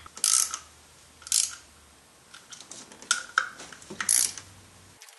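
Hand ratchet clicking in several short runs as bolts are run down on an engine motor mount bracket, with light metal clicks between.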